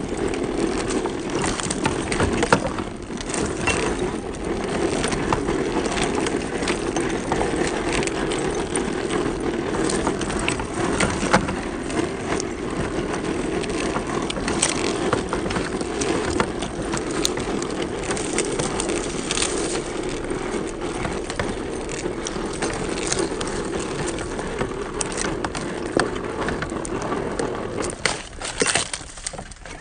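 Scale RC crawler truck driving slowly over dry cracked mud and dead leaves: a steady drivetrain whine from its electric motor and gearbox, with crackles and ticks as the tyres roll over leaves and clods. It cuts off just at the end.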